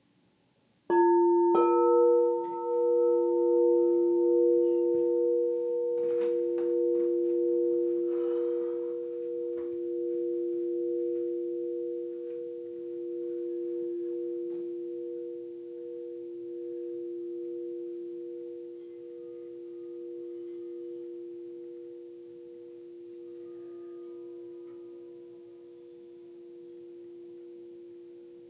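Singing bowls struck twice, about half a second apart, a lower and a higher tone ringing together with a slow pulsing wobble in the higher one and fading slowly over many seconds.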